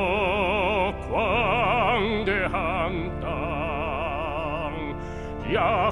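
Pansori singer holding drawn-out sung notes with a wide, regular vibrato, moving to new notes about a second and two seconds in, over sustained instrumental accompaniment.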